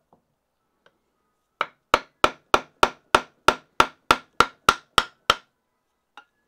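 Wooden mallet striking a crook neck gouge to chop waste wood out of the hollow of a green-wood shrink pot. After a short pause come about thirteen quick, even blows at roughly three a second, each a sharp knock with a brief ring.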